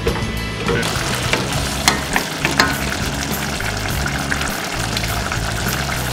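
A thick food mixture sizzling in a stainless steel saucepan on a gas burner, stirred with a wooden spoon, with a steady hiss and many small sharp pops and clicks.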